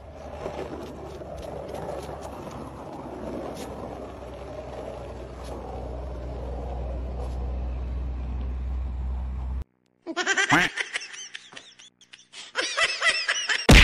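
Skateboard wheels rolling on asphalt, a steady rumble that grows louder. After a sudden cut about ten seconds in, a baby laughs and squeals with rising and falling pitch, in two spells.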